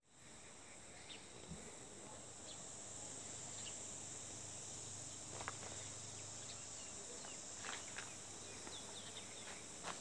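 Faint outdoor ambience of insects giving a steady high-pitched drone, with a few faint short chirps and a couple of soft clicks.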